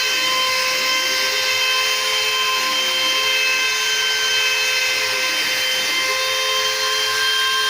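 CNC router running: a steady high-pitched whine with several overtones. Under it, a lower tone glides down and back up several times as the machine's motion slows and speeds up.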